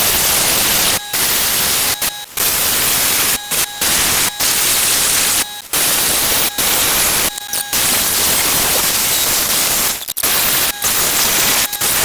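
Cutoff wheel grinding into the steel race of an old wheel bearing: a loud, steady hiss of metal grinding, broken by many brief drop-outs where the wheel comes off the work.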